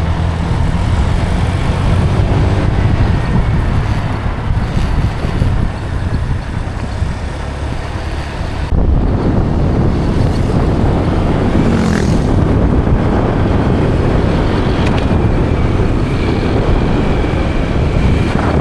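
Motor scooter riding along the road: steady engine and road rumble. The sound changes abruptly about nine seconds in.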